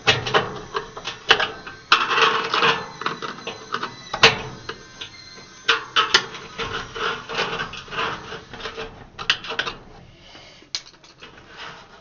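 Irregular scraping and rubbing on the inside of a clothes dryer drum as stuck bubble gum residue is scrubbed out, with scattered sharp knocks. It thins out near the end.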